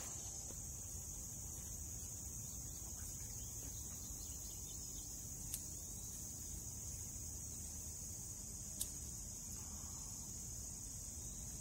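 A steady, high-pitched chorus of insects singing without a break. Two faint sharp clicks come through it, about five and a half and nine seconds in.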